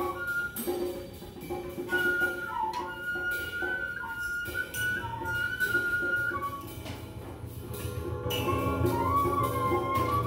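Live instrumental music: a high melodic line that holds notes and slides between them, over light percussive clicks, with a low hum coming in about halfway.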